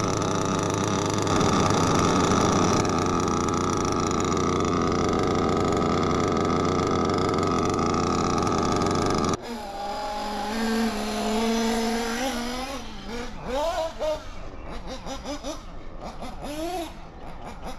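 Alpha .21 five-port nitro engine in an RC buggy running steadily up close. About nine seconds in, the sound cuts off suddenly and gives way to a quieter, farther-off engine note that repeatedly rises and falls in pitch as the buggy is driven on the track.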